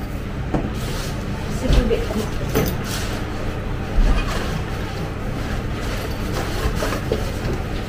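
Rummaging through pantry shelves: bags and packets shifted and handled, with a few short knocks as things are moved, over a steady low rumble.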